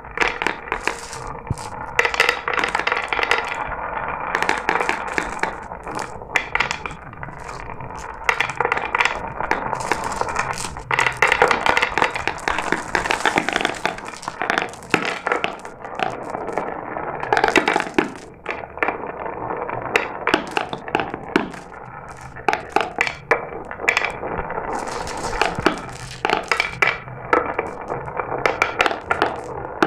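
Glass marbles rolling down a marble run: a continuous rolling rattle broken by many sharp clicks and clacks.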